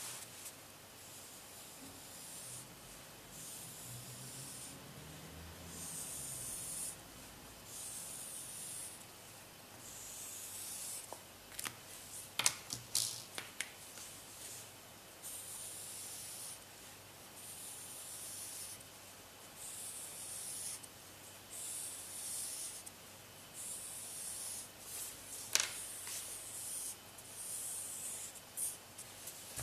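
Felt-tip marker rubbing across drawing paper in repeated back-and-forth strokes, a high hiss about a second long with each stroke and short pauses between. A few sharp clicks come in the middle and once more later.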